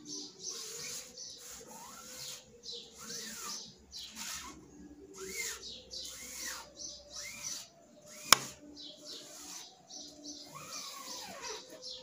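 Rubber squeegee dragged back and forth through ink across a screen-printing mesh, one scraping stroke about every second, many with a short squeak. A single sharp click about eight seconds in is the loudest sound.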